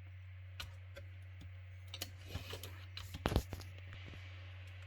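A few short, irregularly spaced clicks from operating a computer, the loudest about three seconds in, over a steady low hum.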